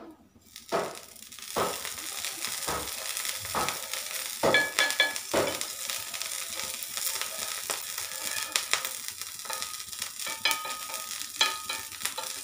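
Butter sizzling as it melts on a hot flat griddle pan, the hiss building about a second in and holding steady. Several light knocks and scrapes come in the first half as the lump of butter is pushed across the pan.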